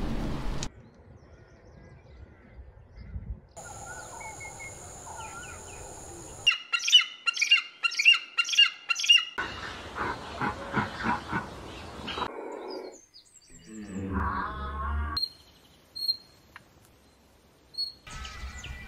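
A string of short spliced animal-call clips with abrupt cuts between them. The loudest is a run of about seven sharp, shrill bird calls repeated two or three times a second, followed by other brief calls.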